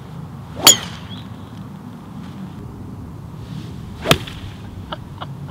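Two golf shots about three and a half seconds apart. Each is a quick club swish ending in a sharp crack of the clubhead striking the ball; the first is the louder.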